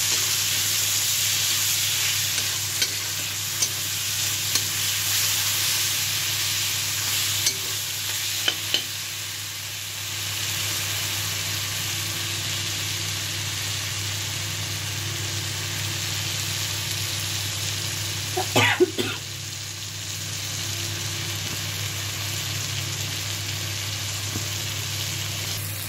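Spiced tomato masala sizzling steadily in hot oil in a pan as it is stirred with a steel spoon, which clicks against the pan a few times. The masala is frying down until the oil separates.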